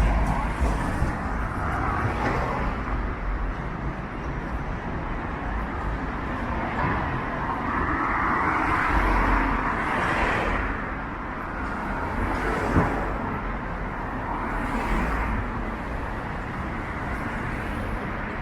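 City street traffic: cars passing with a steady hum of engines and tyres. One vehicle swells and fades about halfway through, and there is a single short click a little later.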